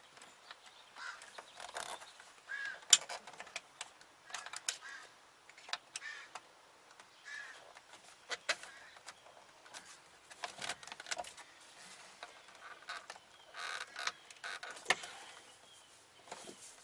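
Scattered light clicks and scrapes of a small flathead screwdriver prying inside the back of a VW Mk4 steering wheel, feeling for the airbag's release lever, with one sharper click about three seconds in. Faint short bird calls come now and then.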